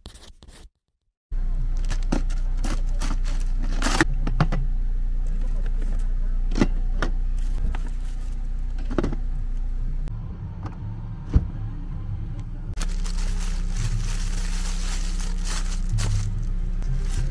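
Steady low drone of a car running, heard from inside the vehicle, with scattered clicks, knocks and rustles as a cooler and a basket of plastic containers and bags are handled. The drone starts suddenly about a second in and grows a little louder near the end.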